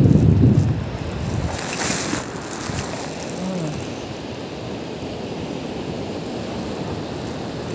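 Surf washing on a beach as a steady wash of noise, with wind buffeting the microphone, heaviest in the first second.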